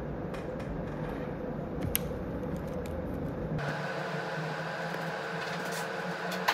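Steady indoor background hum, like a fan or appliance running, with a small click about two seconds in; the hum changes character abruptly about three and a half seconds in, taking on a steadier humming tone.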